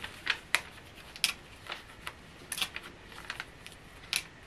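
Paper pattern piece rustling and crinkling as hands lift, shift and smooth it over cotton fabric: a string of short, irregular crackles.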